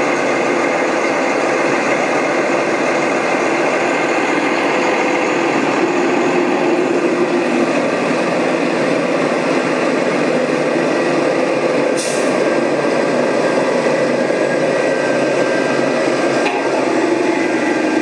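Engine-driven tree-crew machinery running steadily: a constant, loud mechanical drone with a faint steady whine in it and a brief sharp click about twelve seconds in.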